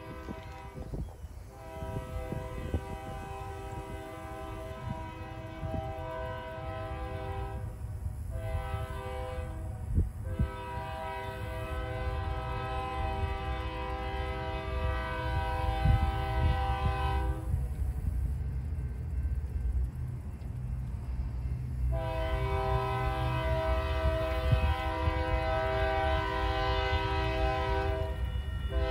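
Union Pacific diesel freight locomotive's multi-chime air horn sounding a grade-crossing warning: long blasts with one short blast between them, a pause of a few seconds, then another long blast near the end. Under the horn, the rumble of the approaching train grows steadily louder.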